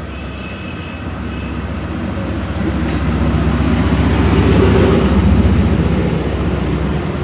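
Pakistan Railways diesel locomotive hauling a passenger train past at close range: its engine rumble swells to its loudest about four to five seconds in as the locomotive goes by, then the coaches roll past on the rails.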